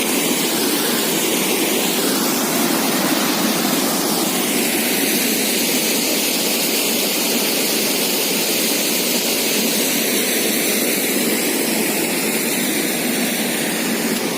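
Waterfall: a loud, steady rush of falling water, even and unbroken.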